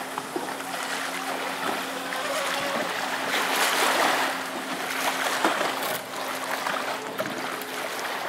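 Pro Boat Sonicwake radio-controlled speedboat, fitted with a swapped brushless motor and a 52 propeller, running flat out across a lake: a steady rush of motor and spray that swells louder about three to four seconds in.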